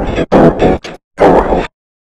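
Cartoon voice audio run through heavy distortion effects, loud and harsh, chopped into three short bursts that cut off to silence shortly before the end.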